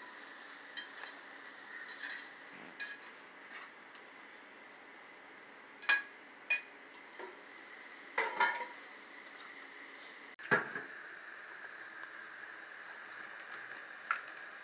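Metal spoon and slotted spatula scraping and clinking against a pot while onions, tomatoes and green chillies are stirred as they fry, over a steady faint sizzle. A louder knock comes about ten and a half seconds in.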